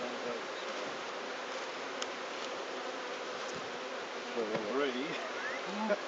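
Steady buzzing of a honeybee colony in an opened hive. In the last couple of seconds single bees buzz close by, their tone rising and falling in pitch.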